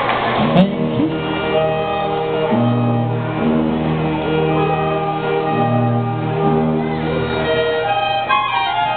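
Military concert band playing: clarinets, saxophones and brass hold sustained chords over a sousaphone bass line moving in long notes. A brief noisy swell ends about half a second in.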